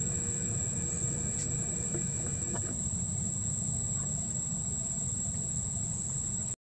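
Insects singing one steady, high-pitched note over a low rumble, cutting off suddenly near the end.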